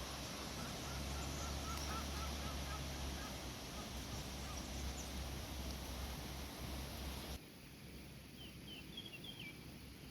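Wind blowing steadily, dropping suddenly to a quieter background about seven seconds in. Small birds chirp faintly, a short run early and another near the end.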